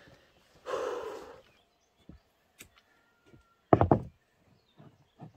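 A few sharp knocks and thuds, the loudest a quick cluster of three or four about four seconds in, with fainter knocks near the end and a short rustling noise near the start.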